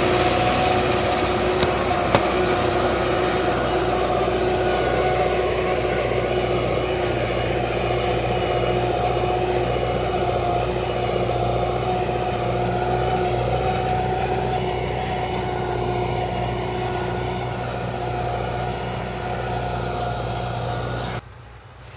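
Belarus 511.1 tractor's diesel engine running steadily under load as it pulls a disc harrow, fading slowly as the tractor moves away. Two short clicks come about two seconds in, and the sound cuts off abruptly near the end.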